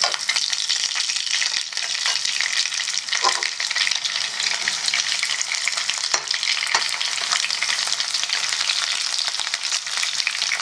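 Cornflour-and-egg-coated chicken pieces sizzling and crackling steadily in hot oil in a kadai, with a few sharp clicks. This is the second fry that crisps the already cooked pieces.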